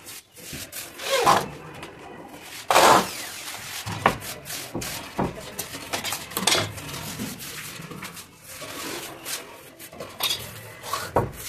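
Wooden window shutter and frame knocking, rubbing and scraping as they are handled and fitted. The knocks and scrapes come at irregular times, the loudest a little under three seconds in.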